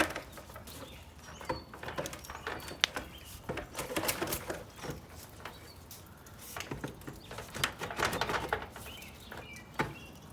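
Scattered clicks, knocks and scrapes of a metal gutter downspout being broken loose by hand at a painted-over joint, busiest about four and eight seconds in. Birds chirp faintly in the background a couple of times.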